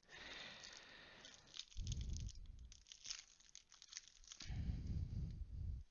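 Foil booster-pack wrapper crinkling and tearing, with low thumps and rubbing of hands handling the pack and cards close to the microphone.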